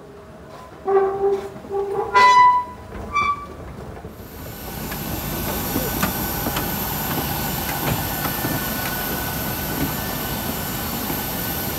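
A few short, loud pitched sounds in the first few seconds. Then, from about four seconds in, a steady rushing noise with a thin, very high whine: a parked Boeing 737 airliner and its surroundings on the stand.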